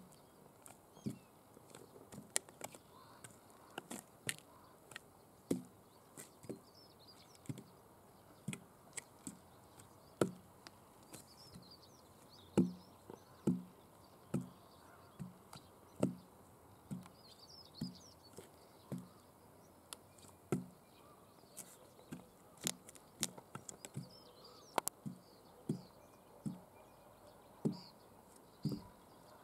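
Very high platform stiletto heels clacking on a rough concrete slab in uneven steps, about one or two sharp knocks a second, with faint birdsong behind.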